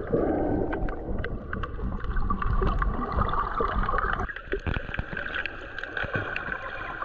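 Underwater sound picked up by a camera held below the surface while snorkeling: muffled water noise and gurgling, with many scattered sharp clicks and crackles.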